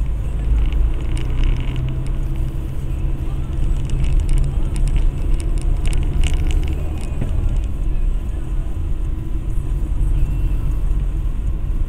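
Road noise inside a moving car's cabin: a steady low rumble of engine and tyres on a wet road. Partway through comes a run of short ticks and clicks.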